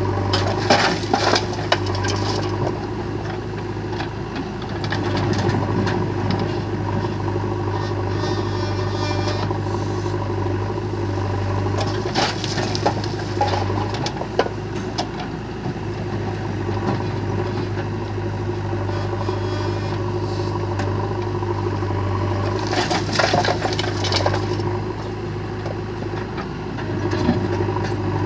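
Diesel engine of a JCB 3DX backhoe loader running steadily, with three bursts of clattering and crunching, about eleven seconds apart, as its bucket dumps loads of stones and mud.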